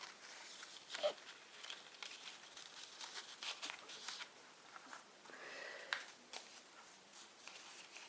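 Faint rustling and light ticks of paper and card being handled: small blank paper tags shuffled and laid down.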